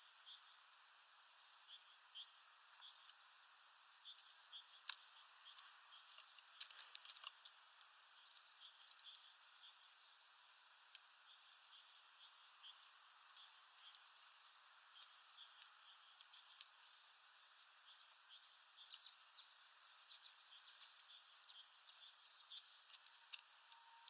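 Redpolls twittering faintly with many short, high chirps, mixed with a few sharp clicks.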